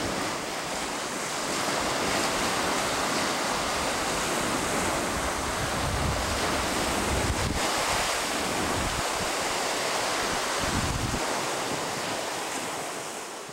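Small waves breaking and washing over a shore, with a steady hiss of foam. Wind buffets the microphone, heaviest in the middle stretch.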